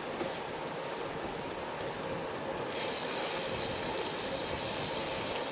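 Steady splashing rush of water from a village fountain, turning suddenly brighter and hissier a little under three seconds in.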